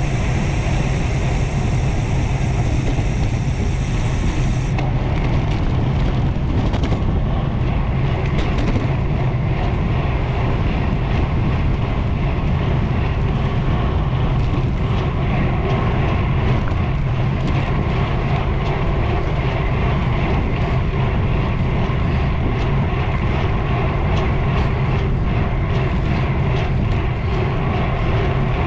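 Wind rushing over the microphone of a camera on a road bike descending at speed: a steady, loud low rumble.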